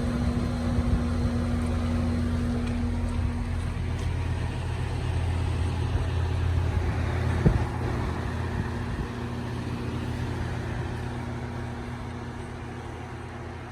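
Goodman GSZ14 heat pump outdoor unit running, a steady mechanical hum from the compressor and condenser fan. There is a single sharp knock about halfway through, and the sound grows fainter over the last few seconds.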